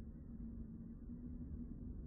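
Low ambient drone: a steady, slightly wavering hum over a deep rumble, muffled, with nothing high in it.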